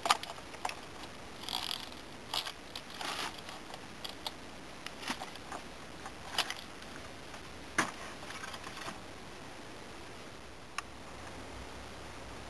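Irregular clicks, short rattles and scrapes of a chainsaw chain being fitted by hand around a long 28-inch guide bar on a Husqvarna 570. The sounds come every second or so for about nine seconds, then thin out to a single click about eleven seconds in.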